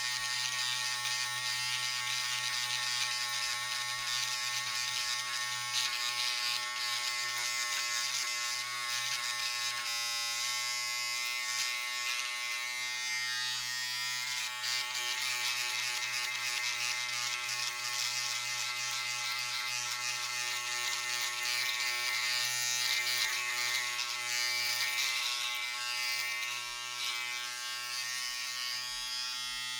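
Electric razor buzzing steadily while shaving, a constant motor hum with a rasping hiss over it. Near the end the rasp eases and the plain buzz is left.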